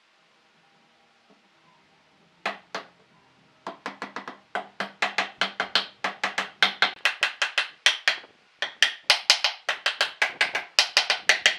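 Hammering on wood: two sharp blows, then a fast run of blows at several a second with a brief pause in the middle.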